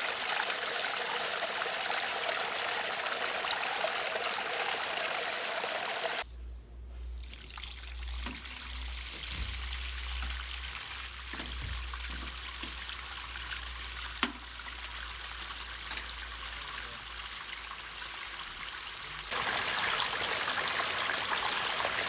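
Water from a small garden pond waterfall splashing into the pond, heard in two versions. First and again near the end: a single stream from the old pipe-fed pre-formed waterfall, an even hiss. In the middle section, from about 6 s to 19 s: the rebuilt natural-stone spill waterfall pouring in a curtain, a softer trickle over a low steady hum, with one short click about 14 s in.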